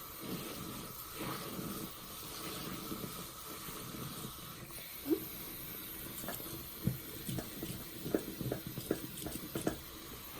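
A soapy, lathered sponge squeezed by hand, squelching wetly as water and suds drain out. About five seconds in there is a short rising squeak, then a run of short sharp squishes and pops.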